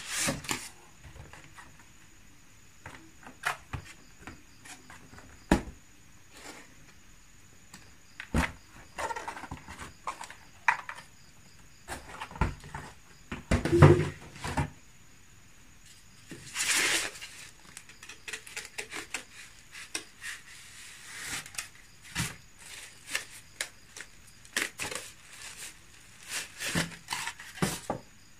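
Handling noise of a bathroom scale being unpacked from polystyrene foam packaging: scattered rubs, rustles and light knocks on a table, with one louder thump about halfway through.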